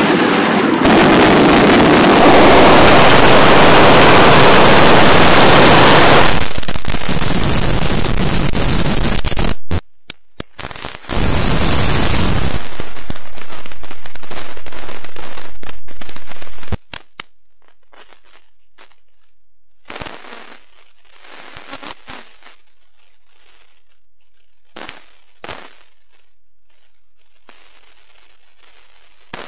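Fireworks display: a dense, loud barrage of bursts and crackling for the first sixteen seconds or so, which then falls away suddenly, leaving a few scattered single pops and crackles.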